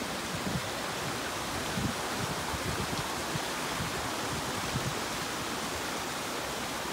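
Shallow mountain creek running over rocks and small cascades: a steady, even rush of water, with a few soft low thumps in the first five seconds.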